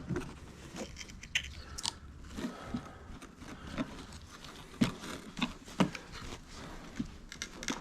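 Plastic door trim and clips being handled and worked on: irregular clicks, taps and crackles, with a few sharper knocks scattered through.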